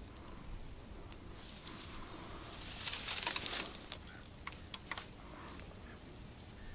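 Dry reed stems rustling and crackling as a small fish is landed among them and picked up by hand, loudest about halfway through, followed by a few sharp clicks.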